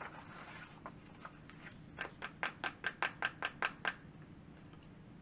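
A quick run of about ten light taps, about five a second, as a hand taps on a sheet of paper on a craft table, a few scattered taps and rustles before it.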